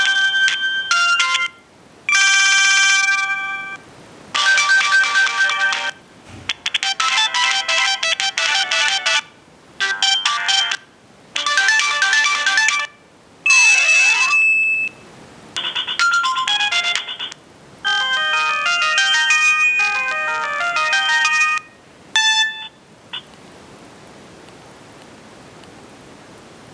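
Samsung SGH-A117 mobile phone playing its built-in ringtones one after another, about a dozen short electronic melodies, each cut off after a second or two. One clip has sweeping rising and falling tones. The last stops about 23 seconds in, leaving a faint steady hiss.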